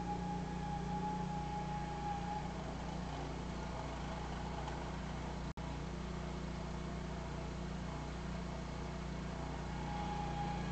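Car engine idling while stationary, heard from inside the cabin: a steady low hum, with a thin steady whine at the start and again near the end. The sound breaks off for a split second a little past halfway.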